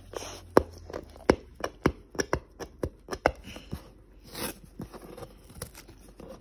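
Packing tape being picked at and peeled off a cardboard box, with sharp irregular crackles and clicks of tape and cardboard and a short rasp of tape pulling free about four seconds in.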